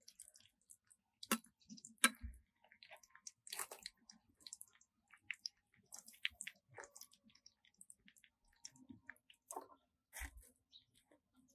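Faint, irregular crackling and spitting of an egg frying in oil in a steel wok, with sharper clicks and a dull knock about one and two seconds in.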